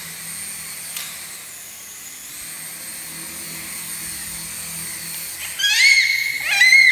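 Small remote-control toy helicopter's electric rotor motor whirring with a steady high whine. About five and a half seconds in, loud high-pitched squeals that rise and fall in pitch come in over it.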